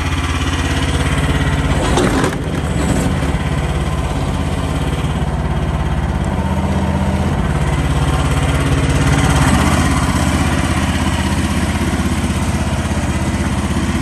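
Small Briggs & Stratton gas engine of a mini excavator running, its note shifting a few times as the hydraulics load it, with one clunk about two seconds in.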